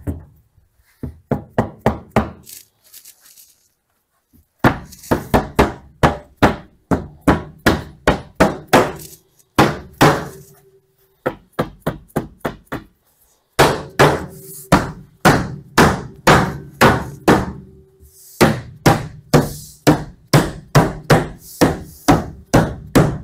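Mallet striking the back panel of a knockdown wood cabinet, tapping it down into its glued grooves in the top and bottom. The knocks come in quick runs of about three or four a second, with short pauses between the runs.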